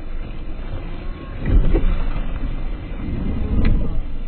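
Low rushing, rumbling noise of water churning and splashing beside a small boat, swelling twice.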